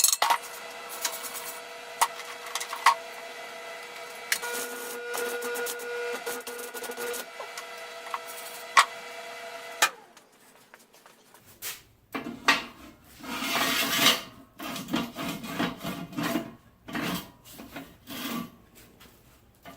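Stick welding on thin steel tube: a steady crackling hiss with a faint hum and scattered pops, cut off suddenly about ten seconds in. Then irregular scraping and rubbing of steel tube sliding in and out of its sleeve.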